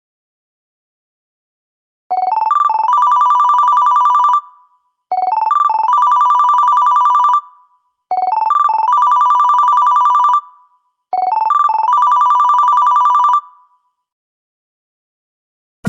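LG T300 Cookie Lite ringtone: three quick rising electronic beeps leading into a fast two-note trill. The pattern starts about two seconds in and plays four times, about three seconds apart.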